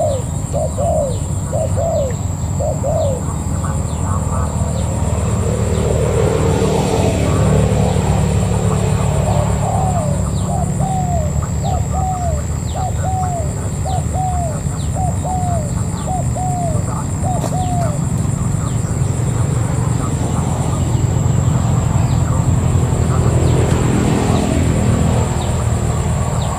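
Spotted doves cooing in runs of short rising-and-falling coos, about two a second, over a steady low rumble.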